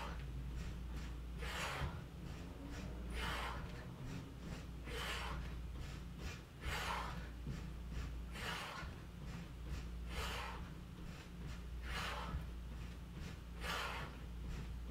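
A person breathing hard and rhythmically while doing jumping jacks, with a loud puff of breath about every second and a half to two seconds. A steady low hum runs underneath.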